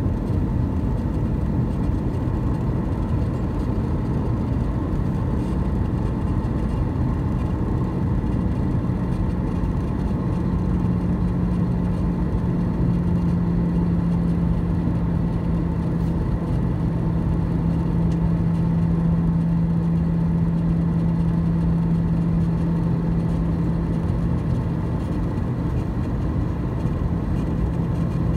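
Airbus A319 cabin noise during descent: steady rushing airflow and engine rumble heard from a window seat. A low engine hum comes up about ten seconds in and settles slightly lower in pitch a couple of seconds later.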